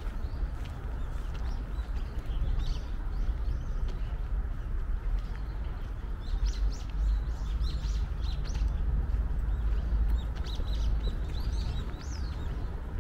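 Small birds chirping, with short high calls coming in clusters a couple of seconds in, in the middle and near the end, over a steady low rumble.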